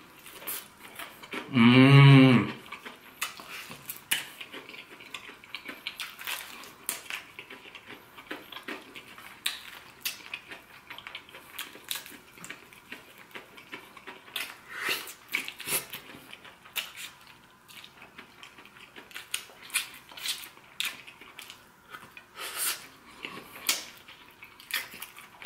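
Close-up eating sounds of fried chicken: wet chewing, lip smacks and the meat being torn apart, many small clicks scattered throughout. About two seconds in, a man gives one loud, drawn-out hum of 'mmm'.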